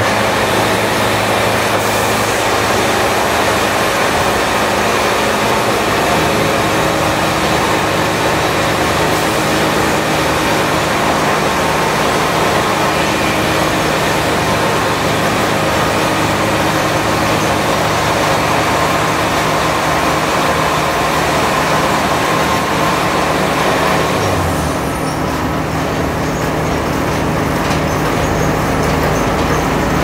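Wood-Mizer band sawmill running steadily, an engine hum under a loud hiss. The hiss drops off about five seconds before the end.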